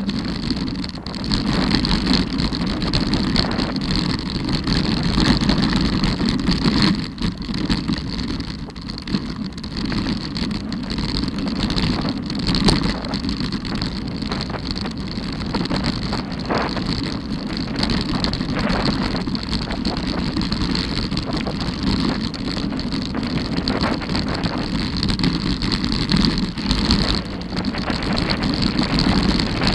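Mountain bike descending a loose gravel and stone trail at speed. The tyres give a steady rumble over the stones, with frequent rattles and knocks from the bike, and wind buffets the microphone.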